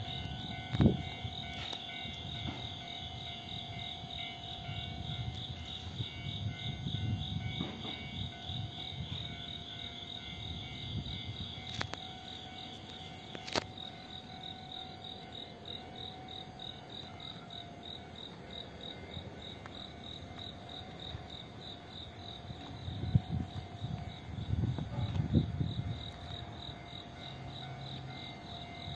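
Insects trilling steadily in a fast, even pulse, over a steady hum. Irregular low rumbles come and go, strongest near the start and again about 23 seconds in.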